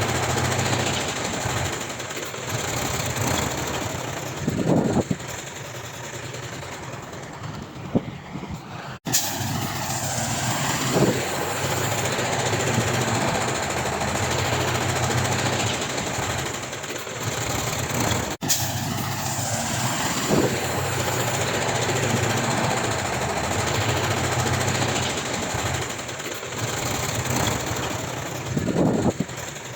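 Heavy diesel earthmoving machinery running steadily with a low engine drone. Short sharp noises come through now and then, and the sound breaks off abruptly twice.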